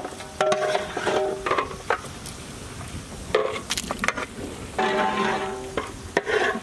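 A metal utensil knocking against a large aluminium cooking pot several times. A couple of the knocks leave the pot ringing for about a second.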